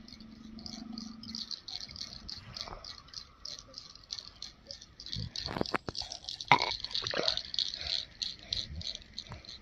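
Rapid, even, high-pitched chirping of insects, about five pulses a second, steady throughout. A few short, sharp knocks come about two-thirds of the way through, the loudest near the end of that cluster.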